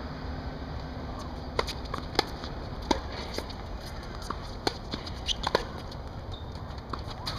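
Tennis ball struck by rackets and bouncing on a hard court during a rally: a string of sharp pops over a steady low rumble.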